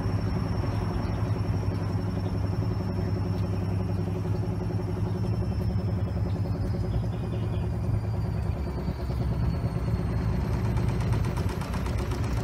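Tricity Bendix WDR1040W washing machine running a load of bricks and jeans: its motor hums steadily while the drum turns with a dense, continuous rattle.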